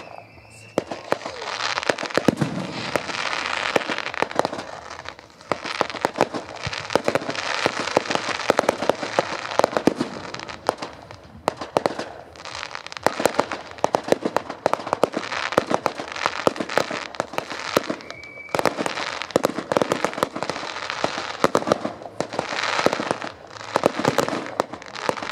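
Fireworks display: dense, rapid crackling and popping of fireworks going off over a continuous hiss, with a couple of short lulls and a brief high whistle about three-quarters of the way through.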